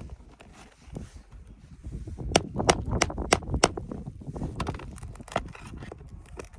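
Pry bar working under asphalt roof shingles to reach the nails: a quick run of five sharp metal taps, about three a second, followed by a few fainter clicks.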